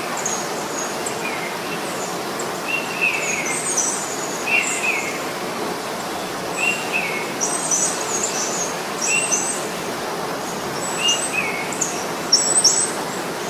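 Wild birds calling over a steady background hiss: a short two-note call repeats about every second or so, mixed with higher, sharper chirps that grow busier in the second half.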